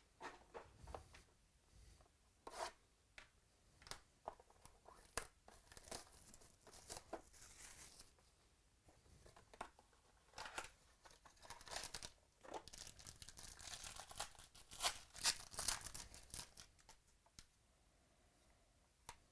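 Trading card packaging crinkling and tearing as packs are opened, with scattered clicks and rustles of cards being handled. The rustling is busiest about two-thirds of the way in.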